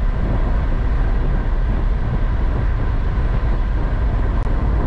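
Steady road and tyre noise with engine hum inside a moving car's cabin, a deep, even drone that does not change.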